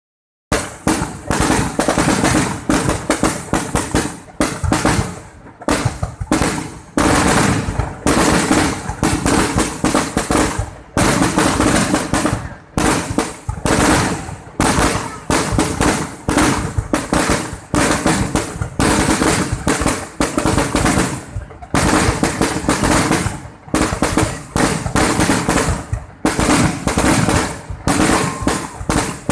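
Fireworks display: aerial shells bursting in quick succession, a dense run of bangs and crackles broken only by brief pauses.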